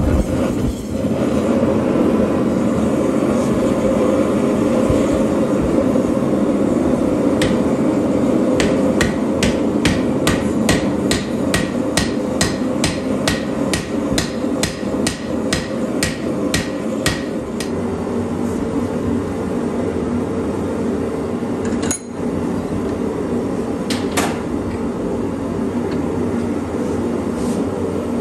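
Hand hammer striking red-hot steel on an anvil as an old ball peen hammer head is forged into a hatchet: a run of steady blows, about two or three a second, then a few single strikes later on. A constant rushing noise runs underneath.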